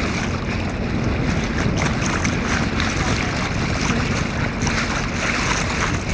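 Wind buffeting the microphone and water lapping and splashing around a small boat, a steady low rumble with light crackling splashes, under a faint steady hum.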